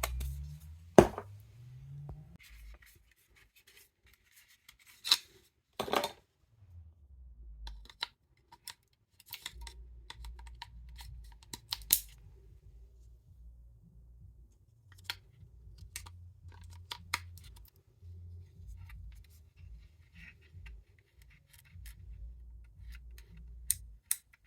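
Scattered clicks, knocks and scrapes of small plastic electronics being handled: the switches and controls of cheap wireless FM-receiver earphones being worked, over a low rumble.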